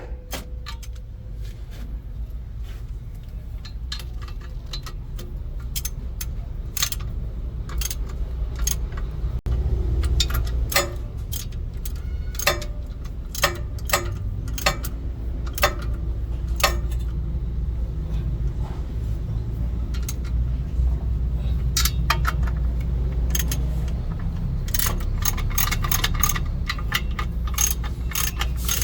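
Metal hand tools clinking and tapping against metal parts in repeated short strikes, busiest in the last few seconds, over a steady low rumble.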